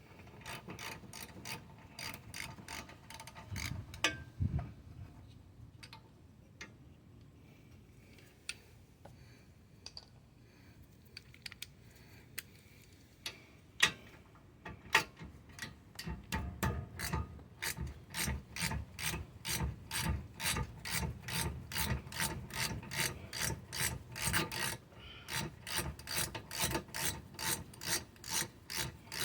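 Hand ratchet clicking as a bolt on the rear brake caliper is wrenched out, in short sparse strokes at first, then a steady run of two to three clicks a second through the second half.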